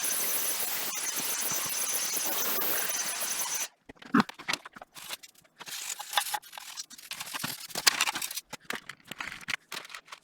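A steady jet of compressed air hissing for a few seconds and cutting off suddenly, blowing dust out of an old PC. Then scattered clicks, scrapes and knocks of handling.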